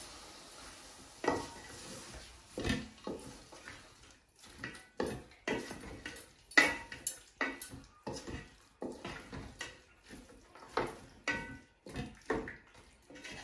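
Pieces of raw meat dropped by hand into a stainless steel pot, making irregular knocks and clinks against the metal, some ringing briefly. Near the end a wooden spatula starts stirring the meat in the pot.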